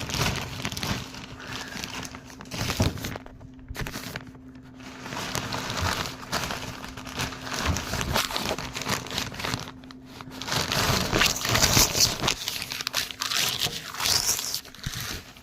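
Crinkling and rustling of something being handled, louder in irregular patches, over a steady low hum.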